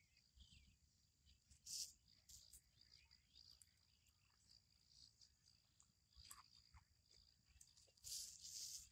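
Near silence: a faint, steady high-pitched insect drone, with scattered soft ticks and rustles and a louder scratchy rustle near the end.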